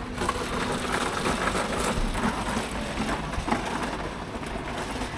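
Busy city street ambience: a steady hum of traffic with scattered small clicks and knocks.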